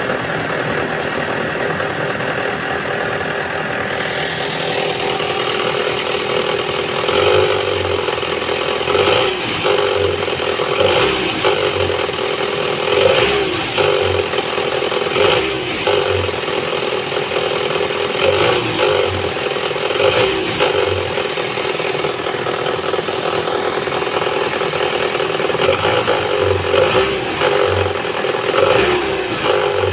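Toyota 3S-FE inline-four engine idling cold while warming up, with an extraneous ratchet-like rattle that comes and goes every second or two.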